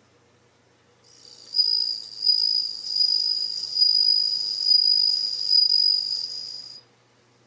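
Japanese bell cricket (suzumushi) male singing: one high, ringing song that fades in about a second in, holds steady, and stops abruptly near the end.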